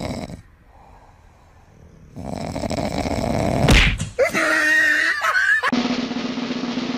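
A dog vocalizing: breathy noise, a sharp thump nearly four seconds in, then wavering, pitched vocal sounds for about a second and a half. A steady low tone follows near the end.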